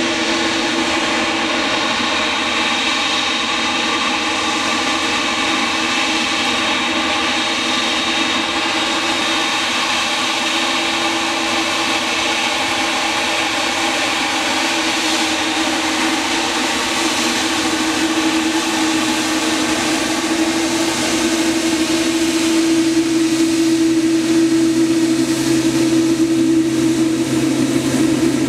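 Boeing 787-8's GE GEnx-1B turbofans running at taxi power as the airliner taxis, a steady whine of several held tones over a rushing hiss. It grows louder in the last third as the aircraft turns side-on.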